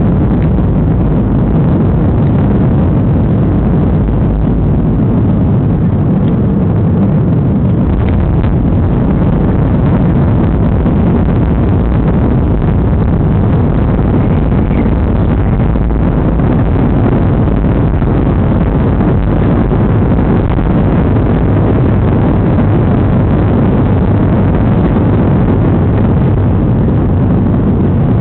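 Boeing 737-300 with CFM56-3 turbofans in flight: a loud, steady low rumble of engines and airflow, unchanging throughout.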